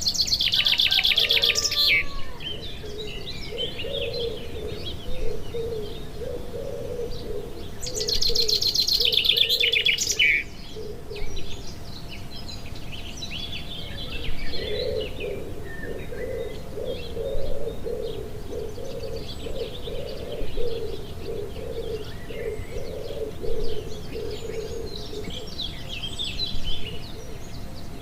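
Several birds calling: scattered high chirps, two loud buzzy trills near the start and about eight seconds in, and a low call repeated in long, even series.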